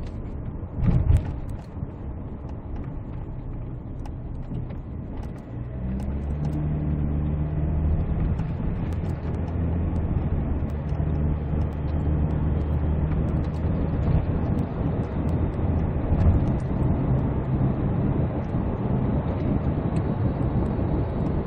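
Cabin noise of a 2012 SsangYong Korando Sports pickup on the move: its diesel engine's steady hum over road noise, becoming louder and more even about six seconds in. A brief thump sounds about a second in.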